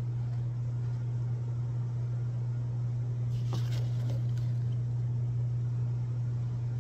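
A steady low hum, with a short run of soft knocks about three and a half seconds in as sliced mushrooms are scooped up by hand from a wooden cutting board.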